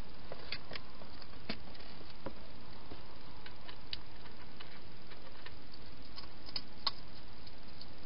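Wild hedgehog eating and moving about inside a plastic feeding box: irregular sharp little clicks of chewing and scrabbling, bunched about a second in and again near the end, over a steady hiss.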